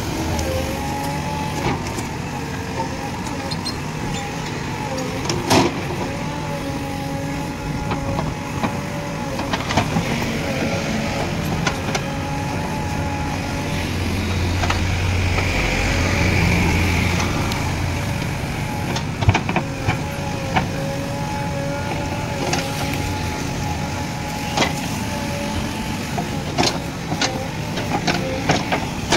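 JCB 3DX backhoe loader's diesel engine and hydraulics working under load, with a steady whine that wavers in pitch and swells louder about halfway through. Scattered knocks of the digging bucket striking stones and brick rubble, more frequent near the end.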